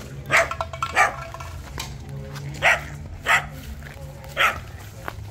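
A dog barking, five short barks spaced about half a second to a second and a half apart.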